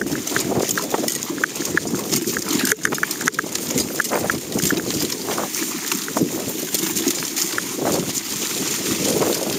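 Dog sled hauled by its team over wet tundra heath without snow: a steady rough scraping and rustling of the sled through the vegetation, with many irregular clicks and knocks.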